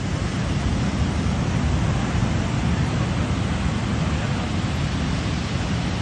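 Ocean surf breaking and washing up a beach: a steady rush of noise with a heavy low rumble.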